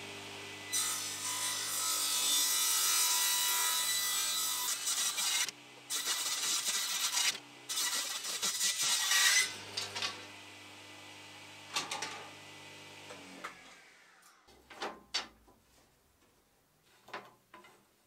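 Table saw running and ripping reclaimed wood into thin strips, with several loud cuts over the first nine seconds and a short one near twelve seconds. The motor then winds down, and a few light wooden knocks follow near the end.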